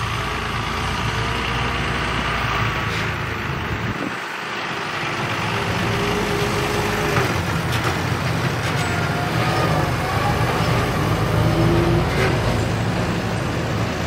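John Deere 6190R tractor's diesel engine running steadily as the tractor drives past pulling a grain trailer, with a few faint clicks.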